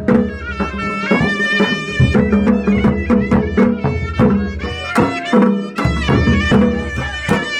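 Pahari nati folk music: a reedy wind instrument playing a melody in long held notes over a steady drumbeat.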